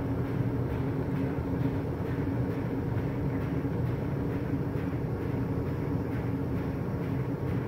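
Gas furnace running with a steady low hum over a rushing sound, from the newly replaced inducer motor and the lit burners.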